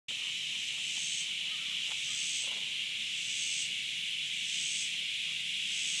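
Cicadas buzzing in chorus: a steady, shrill, unbroken drone, with a higher buzz swelling in and out about every second and a quarter.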